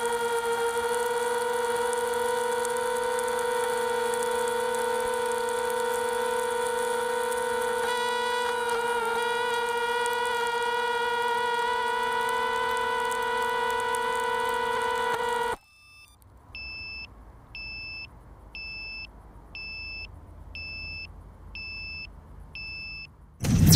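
Brushless motors of a crashed Walkera F210 racing quadcopter left powered after the crash, held still by grass, giving a steady high electric whine. This is the fault that burned out one of its ESCs. The whine cuts off suddenly, followed by short electronic beeps about once a second.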